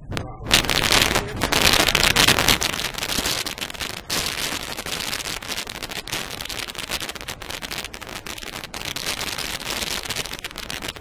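ASK 21 glider rolling out over a grass strip: a dense rattling, crackling rumble of the wheel and airframe bumping over the turf, mixed with rushing air. It starts suddenly and is loudest for the first couple of seconds, then runs on more evenly.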